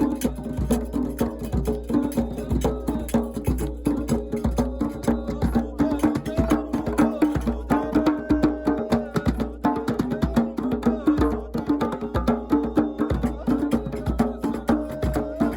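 Music with fast, dense percussion strikes over a held melodic line, in a traditional or folk style.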